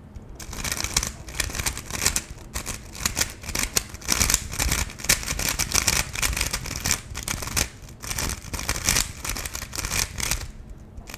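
UV-coated GAN 11 M Pro magnetic 3x3 speedcube being turned fast: a dense run of plastic clicks and clacks as the layers snap through their turns, with a brief pause near the end.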